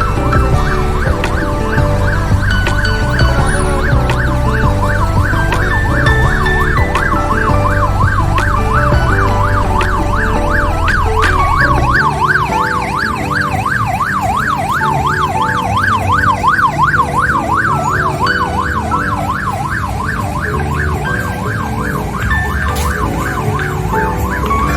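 A fast warbling, siren-like wail over music with a pulsing bass line. The wail rises and falls several times a second and is strongest through the middle.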